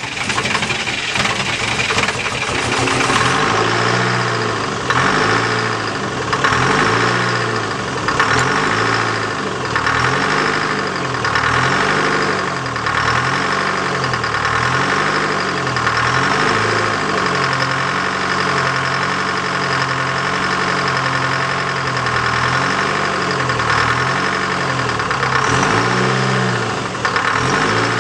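Detroit Diesel 4-53T turbocharged two-stroke four-cylinder diesel running just after starting, its note swelling regularly about every second and a half, with a faint wavering whine above it.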